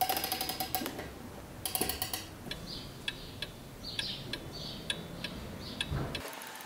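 Mechanical Seiko 5 Sports automatic wristwatch, set into a wooden block, ticking close to the microphone: sharp, regular clicks about two a second from about two seconds in, after a few louder clattering clicks at the start.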